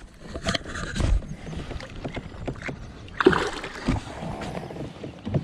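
A bass released over the side of a plastic fishing kayak: knocks and bumps on the kayak hull, then a short splash about three seconds in as the fish kicks away.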